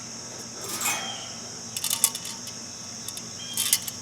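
Small metal and plastic parts clicking and clinking as they are handled, in a few scattered bursts over a faint steady hum.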